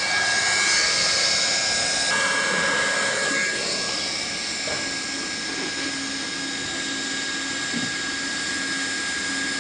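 Handheld hot-air welding gun blowing steadily: a constant hiss of air with a steady whine from its blower, as its nozzle welds the edges of a flat-roof membrane.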